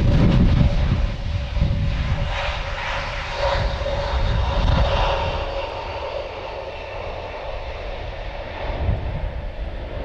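Airbus A321neo airliner's geared turbofan engines whining as it rolls along the runway, with a steady fan tone that eases after about five seconds. Strong gusty wind buffets the microphone underneath.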